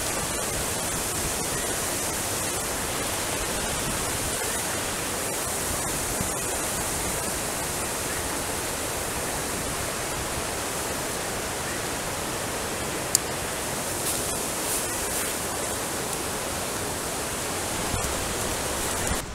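Steady rushing hiss of water pouring over a low dam, even and unbroken, with a single sharp click about two-thirds of the way through.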